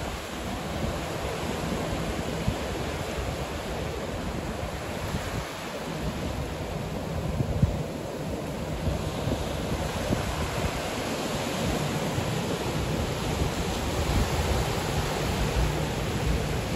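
Ocean surf breaking and washing up the shallow beach in a steady wash, with wind buffeting the microphone.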